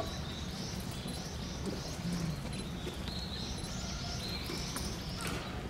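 Small birds chirping in a quick repeated series, about two short high calls a second, over a steady low background hum.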